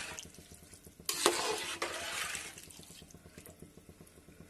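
Metal spoon stirring rice and water in a metal pot, sloshing and scraping. A loud slosh starts sharply about a second in and lasts about a second and a half, then the stirring goes on more quietly with a few light clinks.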